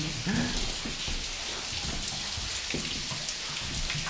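Groundwater dripping and showering down a mine shaft, a steady rain-like patter with scattered sharper drops.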